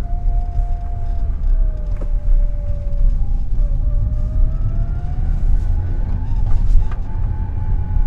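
Lada Kalina 2192 driving, heard from inside the cabin: a steady low engine and road rumble, with a thin gearbox whine that falls and rises with road speed. There are a few light ticks, but no sheet-metal rattle from under the car, which has just been repaired.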